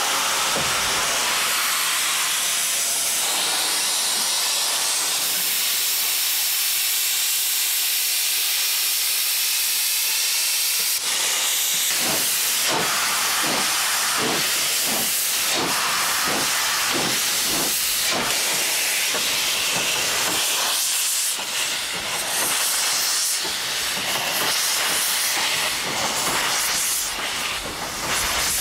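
Steam locomotive hissing as steam blows out by its cylinders. About twelve seconds in, steady exhaust chuffs begin, about one and a half a second, as it gets under way.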